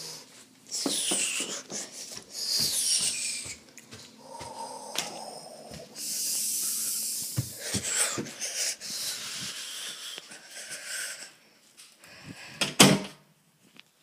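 Scraping and rubbing sounds, several long breathy sweeps, with scattered small knocks and one loud knock near the end: toys and a toy house's door being handled.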